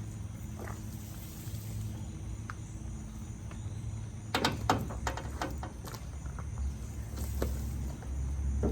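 A steady low hum of a motor running, with a quick cluster of sharp clicks and knocks about four and a half seconds in and a few single ticks after it.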